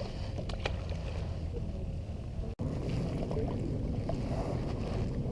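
Wind rumbling on the microphone aboard a small boat on open water, a steady low noise, with a few faint clicks in the first second and a sudden brief cut-out about halfway through.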